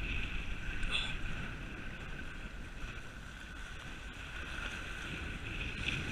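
Wind buffeting the microphone over choppy sea water washing against jetty rocks, a steady noise heaviest in the low end.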